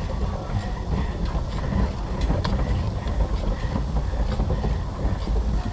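Pedal boat underway: a steady low rumble with light, irregular clicks and clatter from the boat's pedal drive and paddle working through the water.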